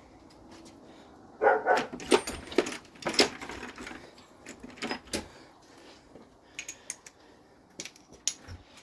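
A dog barking a few short times, about one and a half to three and a half seconds in and again near five seconds, followed by scattered light clicks and clinks.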